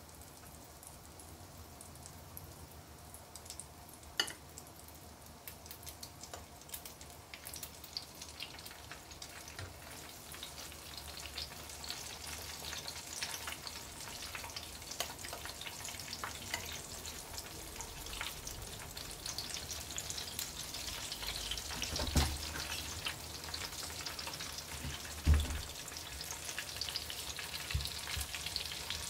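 Egg-battered enoki mushroom bundles deep-frying in oil in a wok: a crackling sizzle that grows louder as more bundles go into the oil, with a few sharp knocks.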